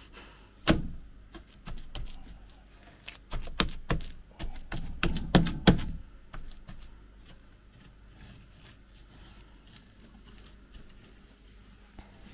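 Handfuls of wet modelling clay slapped and pressed by hand onto driftwood and rock: a run of sharp slaps and thuds over the first six seconds, then only faint handling noise.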